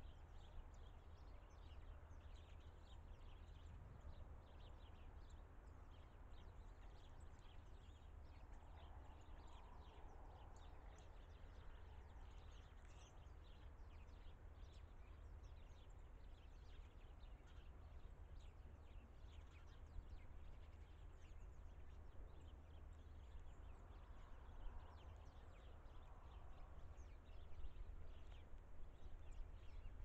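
Faint outdoor ambience: a steady low rumble, with many short, faint high chirps from small birds scattered throughout.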